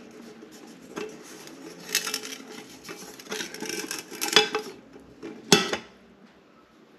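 Metal camping pot and utensils knocking, scraping and clinking as they are handled, with several sharp ringing clinks, the loudest two a second apart near the end.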